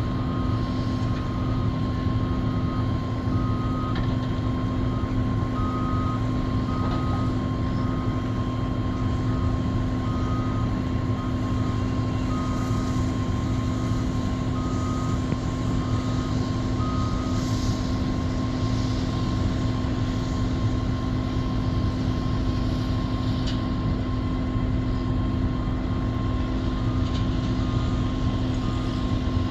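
Doosan 480 excavator's diesel engine running steadily, with a warning alarm beeping about once a second; the beeping stops a little past halfway and comes back near the end.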